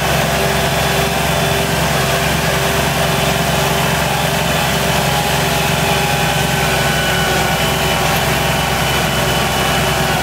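Tractor engine running at a steady speed, with no change in pitch, as the tractor drives along plowing snow.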